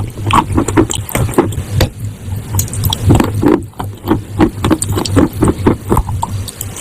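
Close-miked crunching and chewing of chalk and clay: sharp, irregular crunches several times a second, over a low steady hum.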